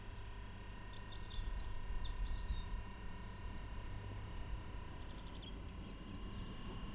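Small songbirds chirping and giving short trills several times, over a steady low rumble of outdoor background noise.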